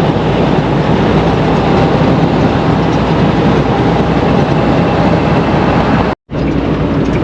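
Steady road and engine noise of a vehicle driving, heard from inside the cab. The sound cuts out completely for a split second about six seconds in.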